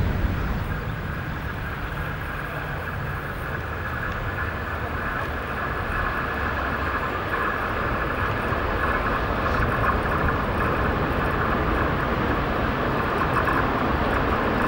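Train running on the rails: a steady low rumble with a hissing band of wheel-and-rail noise that builds gradually, getting louder over the second half.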